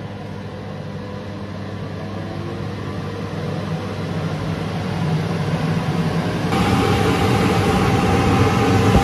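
Church organ blower's electric motor and fan running loud, fed through a variable transformer as the voltage is turned up, so the hum and whirr grow steadily louder.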